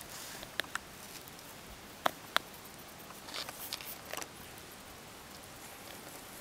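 Young hedgehog nosing around a shoe in grass: a few sharp clicks, the loudest two close together about two seconds in, then a short run of soft crackling rustles.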